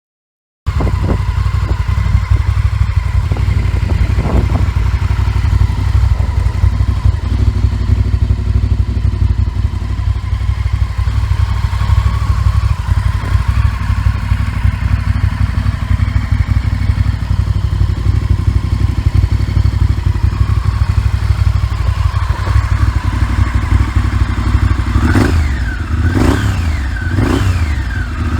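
Honda VTR1000F Firestorm's 996 cc 90-degree V-twin running through Remus Grandprix slip-on end cans, idling steadily with a deep, lumpy exhaust beat. Near the end the throttle is blipped about four times in quick succession, the revs rising and falling each time.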